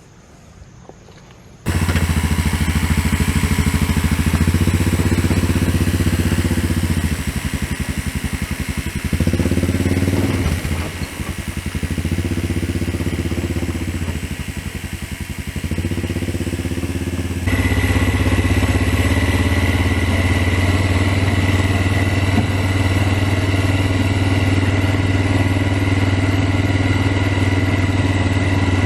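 Four-wheeler (ATV) engine running, starting abruptly about two seconds in, wavering and dipping in level through the middle, then running steadily again after a sudden change near the end.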